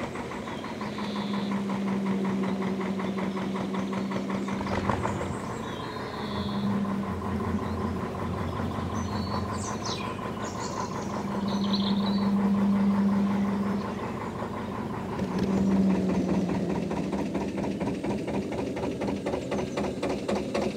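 Narrowboat's air-cooled Lister diesel engine running at low revs as the boat moves under way, an even beat of firing strokes with a low hum that swells and eases several times.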